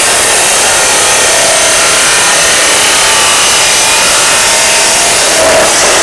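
OSAKA 2300 W abrasive cut-off saw grinding through steel box tubing, a loud steady grinding hiss as the spinning cut-off wheel is pressed into the metal. Near the end the wheel is lifted out of the cut.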